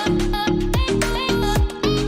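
Upbeat background music with a steady beat, pitched instrument notes and regular drum hits.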